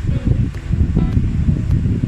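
Background music with a strong low rumble.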